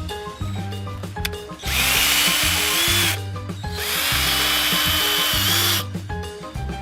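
Power drill run twice, once for about a second and a half and then for about two seconds, its motor whine rising as it spins up and then holding steady. Background music plays throughout.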